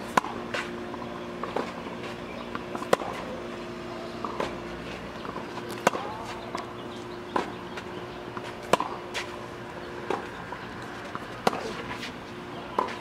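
Tennis ball being hit back and forth in a baseline rally with racquets strung with Volkl V-Square polyester string. There is a sharp pop about every second and a half, alternating between louder near strikes and quieter far ones, with footsteps scuffing on clay and a faint steady hum behind.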